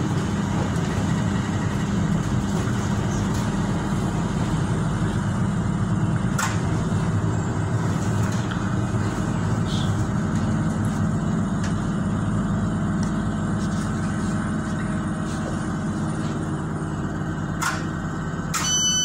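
Tyne and Wear Metro train running along the line, heard from inside the carriage: a steady low rumble of wheels and running gear, with a few sharp clicks from the track. A few steady high tones start just before the end.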